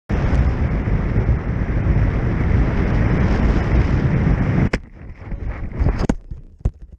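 Wind buffeting a camera microphone, loud and even; about two-thirds of the way through it cuts down sharply with a click, leaving a quieter rustle and a few more clicks.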